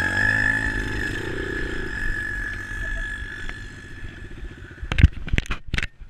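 Off-road motorbike engine idling with a steady tone, fading over the first few seconds. A few sharp knocks come about five seconds in.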